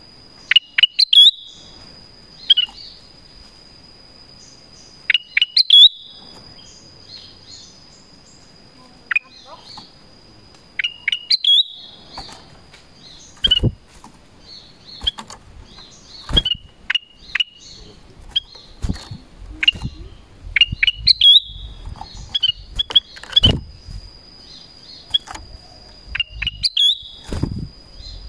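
Black-crested bulbul (kutilang emas) calling: short, sharp whistled notes in quick clusters, coming more often after the first ten seconds, calling out to wild bulbuls. A thin steady high insect drone runs behind, and from about halfway there are dull knocks as the bird hops about its cage.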